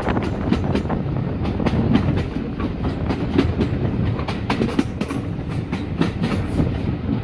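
Railway passenger coach running along the line, heard at an open window: a steady rumble with the wheels clicking over the rail joints.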